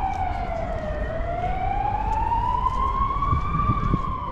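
A siren wailing slowly. Its pitch falls to its lowest about a second in, climbs for nearly three seconds and starts falling again near the end, over a low rumble.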